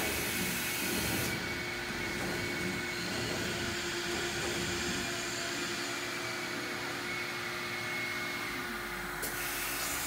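Steady mechanical hum of a powered-up CNC cylindrical grinder running, with one steady mid-pitched tone in it; a high hiss drops away about a second in and comes back near the end.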